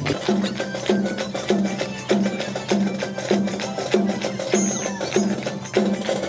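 Street band's drums playing a steady marching beat, a little under two beats a second.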